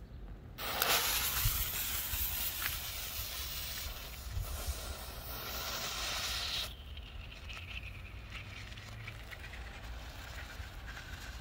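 Showtime Fireworks Mini Smoke smoke firework hissing after its fuse is lit, as it gives off coloured smoke. A loud hiss starts about half a second in and drops to a quieter steady hiss after about six and a half seconds.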